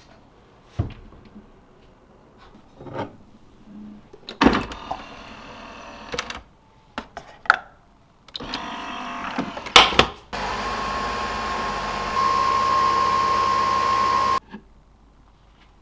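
A capsule coffee machine being loaded, with rustles and clicks and a sharp snap as its lid is shut. It then brews with a steady motor whir and a high whine, which grows louder partway through and cuts off suddenly as the coffee finishes pouring.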